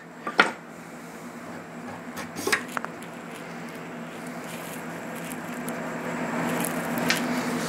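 A few light clicks and taps from handling a marker pen and AR-15 barrel parts, over a steady hum.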